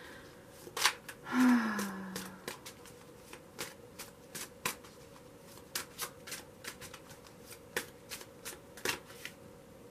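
A deck of tarot cards being shuffled by hand: a run of soft, irregular flicks and snaps of the cards. A short, low hum of a voice with a falling pitch comes about a second in.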